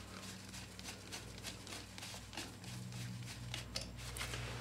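Faint clicks and scrapes of a screwdriver undoing the slotted terminal screw on a BS 951 earth clamp fitted to a copper pipe, over a steady low hum.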